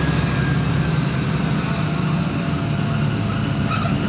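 Volvo B10M bus's mid-mounted six-cylinder diesel running steadily under way, with a thin high whine over the engine drone that fades out in the first couple of seconds and a fainter lower whine later: the kind of screeching noise that marks this bus as in poor health.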